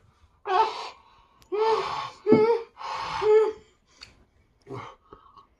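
A person gasping and huffing hard through an open mouth, four loud breathy gasps with a voiced edge, then a fainter one near the end: a reaction to the burn of a very hot sauce on the tongue.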